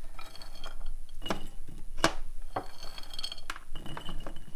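Mixed raisins scooped by hand from a ceramic bowl into a ceramic mug: soft rattling with a few sharp clinks of crockery.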